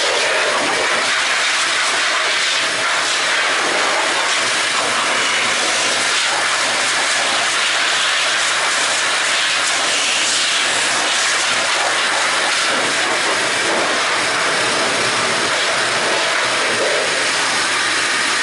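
A loud, steady hiss with a faint low hum underneath.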